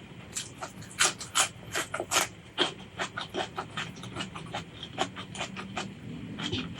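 Close-miked eating sounds: crunchy food being chewed, a quick irregular run of crisp crunches, several a second.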